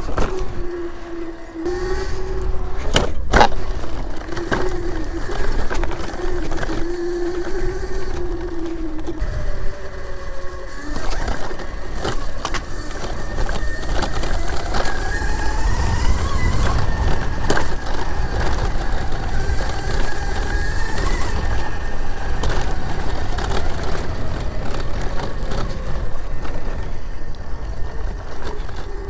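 Razor electric dirt bike being ridden: the electric motor's whine holds steady at first, then climbs in pitch and falls again through the middle as the bike speeds up, over a steady low rumble. A few sharp knocks come about three seconds in.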